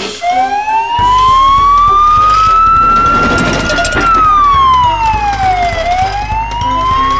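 Wailing siren, its pitch rising slowly for about four seconds, falling for about two, then rising again, over background music with a steady bass line.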